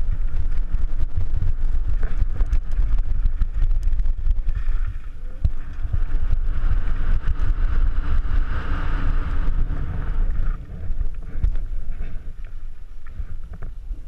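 Downhill mountain bike riding over rough dirt and gravel, heard from a camera on the rider: a steady low rumble of wind on the microphone and tyres on the trail, with frequent knocks and rattles from the bike. It eases off over the last few seconds as the bike slows.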